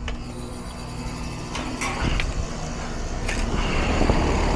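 Central air-conditioning condenser unit starting up and running with a steady low hum that grows louder over the few seconds, with a few light clicks. The system is low on refrigerant, just after a leak repair and evacuation and before charging.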